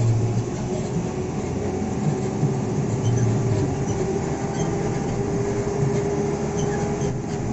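Cabin noise inside a moving Isuzu NQR diesel medium bus: a steady engine and road rumble with a thin steady whine over it.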